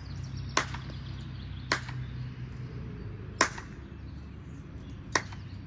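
Four sharp cracks at uneven intervals of one to two seconds, each ringing briefly: deliberate loud noises made to get a young puppy used to sudden sounds.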